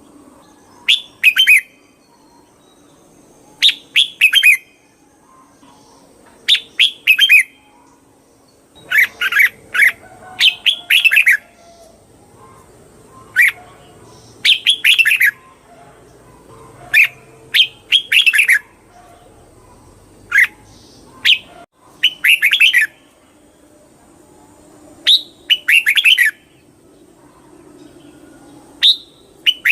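Red-whiskered bulbul singing: short, bright warbled phrases, often in quick pairs, repeated every second or two.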